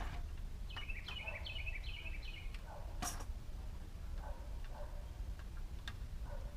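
A bird sings a short phrase of four quick descending chirps about a second in, over a steady low rumble. A few sharp plastic clicks come from zip ties being worked through a plastic vent bug screen, the loudest a little after the birdsong.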